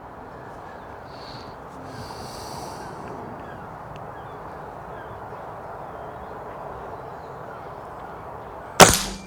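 Air Arms TX200 Hunter Carbine, a .177 underlever spring-piston air rifle, fires once near the end: a single sharp, loud crack with a short tail. Before it there is only a steady low background hiss.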